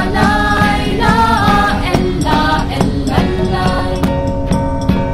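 Background music: a folk song with voices singing a line that ends about three and a half seconds in, followed by instruments holding steady notes over a regular beat.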